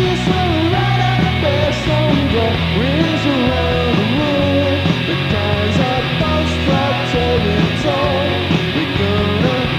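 Live rock band playing: electric guitars, bass and drums under a male lead vocal singing a melody.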